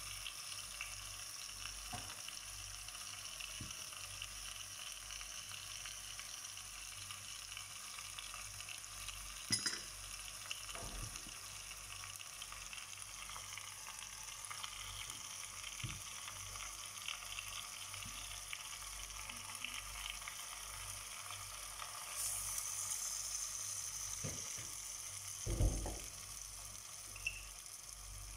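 Chicken feet sizzling in a stainless steel pot: a steady frying hiss that grows louder about three-quarters of the way in, with a few short knocks of utensils against the pot, the loudest near the end.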